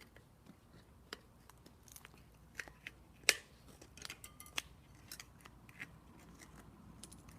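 Screwdrivers clicking and scraping against a bicycle wheel rim as the tire bead is pried off and worked around the rim: irregular sharp clicks, the loudest about three seconds in.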